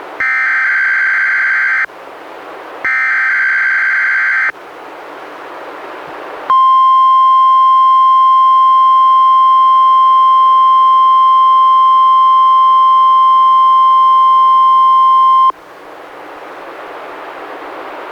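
NOAA Weather Radio Required Weekly Test signal. It opens with the last two of three SAME digital header bursts, each a harsh data screech of about a second and a half. After a short gap of static comes the steady 1050 Hz warning alarm tone, lasting about nine seconds. The tone cuts off into radio static.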